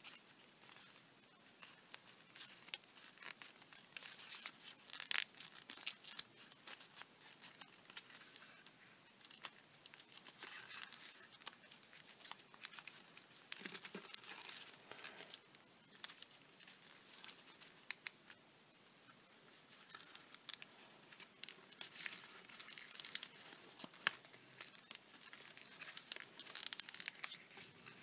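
Origami paper crinkling and rustling as fingers fold and press its flaps into the centre of a paper crane: faint, irregular crackles with short lulls.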